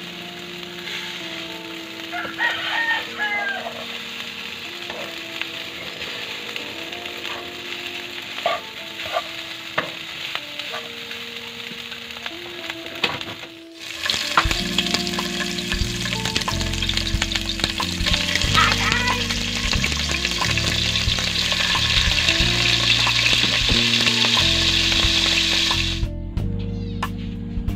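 Rice stirred and scraped with a metal spatula in a frying pan, with a light sizzle. From about halfway, hot oil sizzles loudly around small whole fish frying in the pan. A rooster crows twice in the background.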